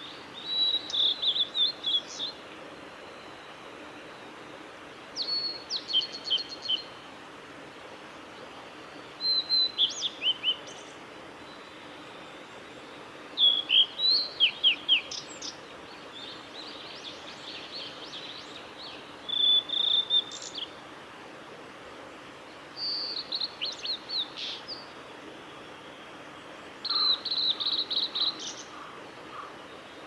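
Male blue-and-white flycatcher singing: seven short song phrases of high whistled notes, each under two seconds long, repeated every three to four seconds.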